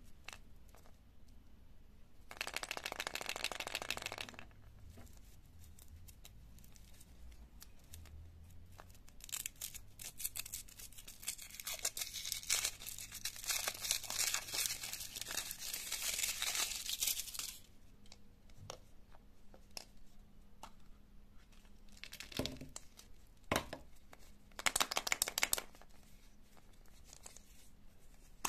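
Foil wrapper of a Kinder Surprise chocolate egg crinkling and tearing as it is peeled off the chocolate, in one short burst early and a long dense stretch in the middle. It is followed by a few sharp knocks and a brief rustle as the egg is handled.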